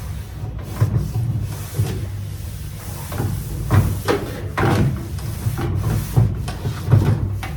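Cloth wiping and handling on the top of a microwave oven: irregular rubbing and light knocks, a few louder ones in the second half.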